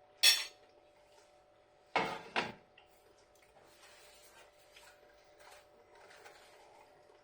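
Cutlery knocking against a dish while eating: one sharp clink near the start, two knocks in quick succession about two seconds in, then faint scraping and ticks.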